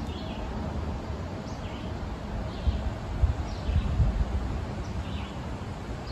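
Wind buffeting the microphone in uneven low gusts, with small birds chirping faintly now and then.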